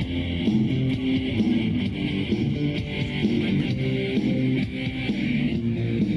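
Rock music with no singing: guitars strumming over a bass line in an instrumental passage between the sung lines of a Russian rock song.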